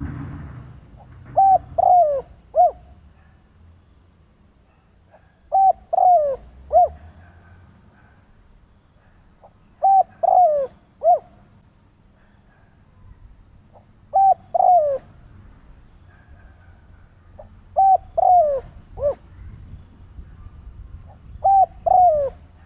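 Spotted dove cooing: short phrases of two or three coos, each note falling in pitch, repeated six times about every four seconds.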